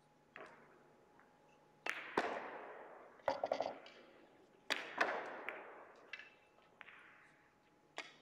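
Russian pyramid billiard balls clacking together on other tables in a large hall. About ten sharp clicks come at irregular times, some in quick clusters, each with an echoing tail.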